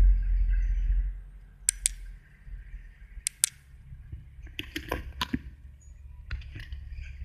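A low rumble for the first couple of seconds, then a scatter of sharp clicks and knocks, in pairs and then in quicker clusters near the end, from the phone being handled and bumped against the car's dashboard.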